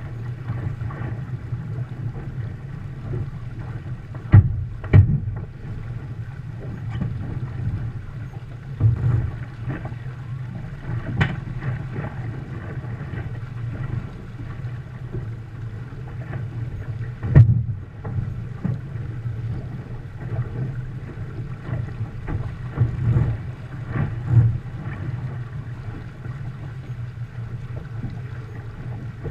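Wind buffeting the deck-mounted camera's microphone and water rushing along the hull of a Viper 640 sport boat under sail, in uneven gusts. A few sharp knocks cut through: two close together about four seconds in, and one louder one around seventeen seconds.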